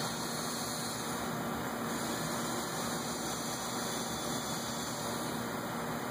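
Steady hiss with a faint low hum: shop room tone with no distinct work sounds.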